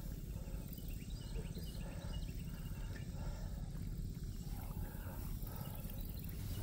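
Steady low rumble of outdoor background noise, with faint, scattered short high chirps.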